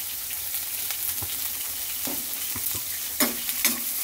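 Onions and vegetable strips sizzling as they sauté in oil in a stainless steel pan, stirred with a metal spoon that scrapes the pan. The spoon clanks against the pan twice near the end.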